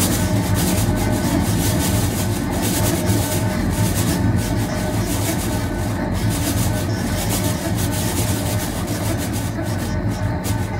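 Contemporary percussion and electro-acoustic texture: a continuous rumbling, rubbing noise over a low hum, with a few thin steady tones held beneath it. It comes from objects such as a metal ball rolled around a perforated metal pan.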